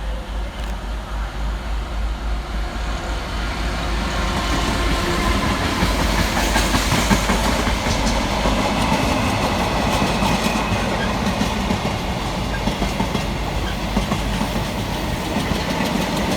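Class 66 diesel-electric locomotive hauling a container freight train through the station, with the wagon wheels clattering rhythmically over the rails. It gets louder about four seconds in as the train draws level.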